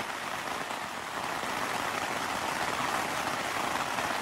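Steady rain pattering on a cabin tent's fabric walls, an even hiss heard from inside the tent.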